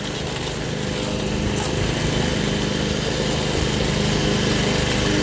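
Toro 53 commercial lawn mower's 5 HP Suzuki engine running steadily with the blade engaged as the self-propelled mower drives across dry grass and dirt, growing slightly louder toward the end.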